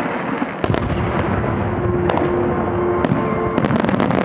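Aerial firework shells bursting: a sharp bang about two-thirds of a second in, single bangs around two and three seconds, then a rapid run of pops and cracks near the end. Music plays underneath.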